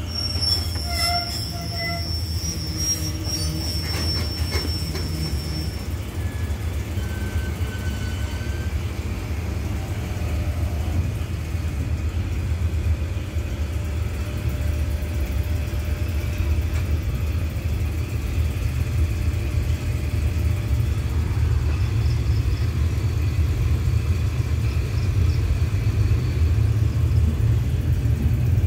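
Locomotive-hauled passenger train pulling out, heard from the open doorway of a coach: a low rumble of the coach rolling on the rails grows louder as the train gathers speed. A high, thin, steady squeal with a few clicks runs through the first several seconds.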